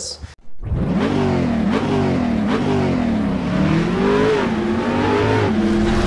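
Car engine revving repeatedly, its pitch rising and falling several times, then holding steady near the end.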